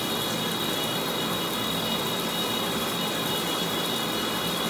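A steady rushing hiss of running water, as from a shower running, with no change.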